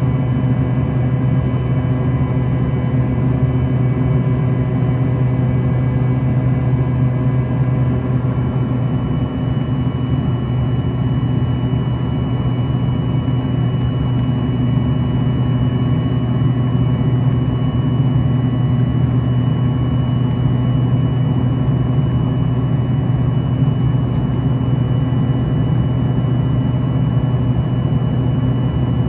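Rolls-Royce AE 3007 turbofans of an Embraer ERJ-145XR heard from inside the passenger cabin: a steady low drone with several constant whining tones above it. A high whine grows a little stronger about halfway through.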